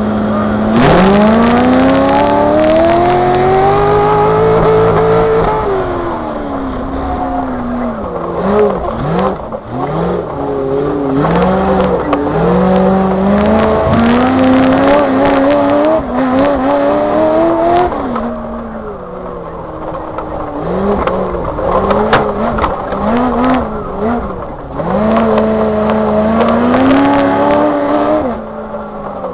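Rock racing buggy's engine, heard from inside the cockpit, revving up and falling back over and over as the throttle is worked, with sharp knocks and rattles of the chassis here and there.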